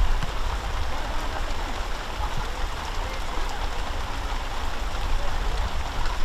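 Wind buffeting the microphone: a steady rushing noise with a heavy low rumble.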